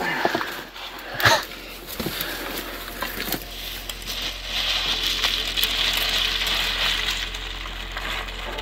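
A sharp knock about a second in as a hiker scrambles over a fallen log. Then footsteps crunching and loose rocks clinking and shifting underfoot on a scree slope.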